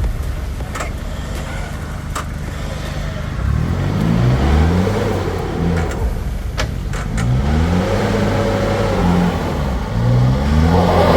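A four-wheel-drive's engine working a rough off-road track. It runs steadily at first, then revs up and down repeatedly from a few seconds in. A few sharp knocks come through, twice in the first couple of seconds and a cluster in the middle.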